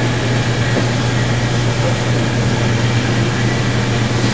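A steady low hum over a constant noisy background, with no announcement in progress.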